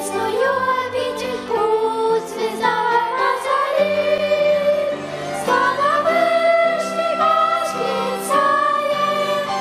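A choir and violin ensemble performing a Christmas song, holding long notes in several parts that change about every second.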